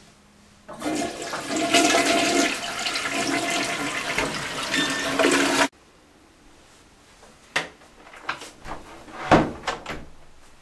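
Toilet flushing, water rushing loudly for about five seconds and then cut off abruptly. A few scattered knocks and clicks follow, the loudest near the end.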